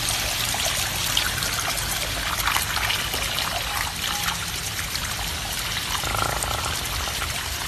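Water running steadily from a hose, a continuous trickling splash.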